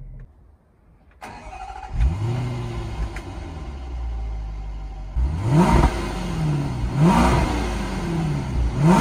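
Land Rover Range Rover IV's 5.0-litre supercharged V8 heard through its exhaust from behind the parked car. The engine note rises sharply about two seconds in and settles to a steady idle. Then come three quick throttle blips, each revving up and falling back to idle.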